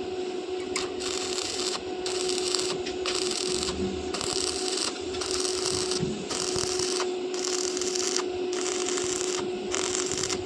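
Rhythmic hissing, scraping strokes, about one a second, over a steady electrical hum.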